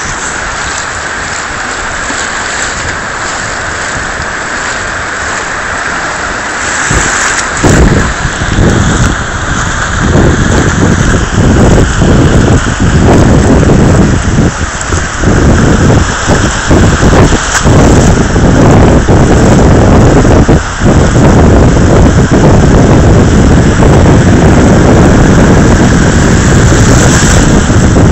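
Surf washing as a steady hiss, then from about seven seconds in a loud, uneven rumble of wind buffeting the phone's microphone that drowns out the waves.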